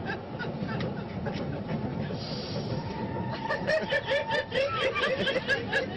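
Metro carriage running with a steady rumble; about three seconds in, a woman breaks into laughter, a quick rhythmic run of high 'ha-ha' pulses.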